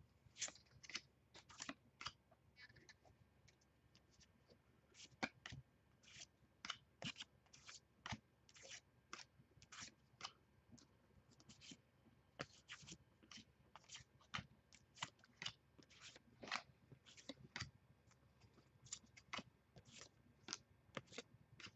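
Bowman baseball cards being flipped through one at a time in the hand, each card slid off the stack with a short, faint snap, unevenly at about two a second.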